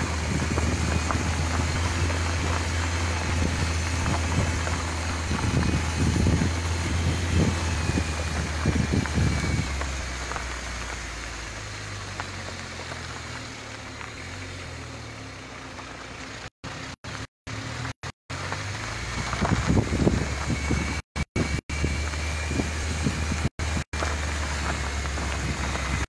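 Moving car's engine drone and road noise on a rough dirt track, steady and low-pitched with rumble from the road surface. It eases off for several seconds midway, then picks up again. In the second half the sound cuts out completely in several short gaps.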